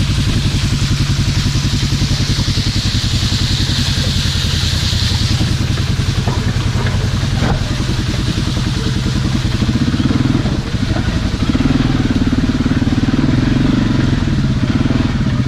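Polaris Ace 570's single-cylinder engine running steadily under way. A hiss sits over it for the first few seconds, and there are a couple of brief clicks around the middle.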